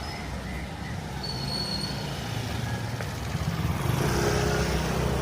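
Street traffic: a steady low vehicle rumble that swells as a large vehicle passes close, louder about four seconds in, with a brief hiss near the peak.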